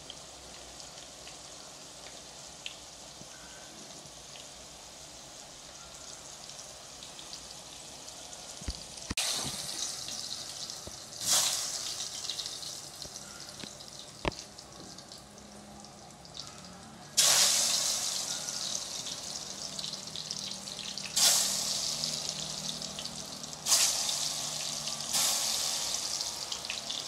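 Banana wedges frying in hot oil in a pan. A faint, steady sizzle for the first several seconds, then about five loud surges of sizzling as more pieces are dropped into the oil, each fading slowly.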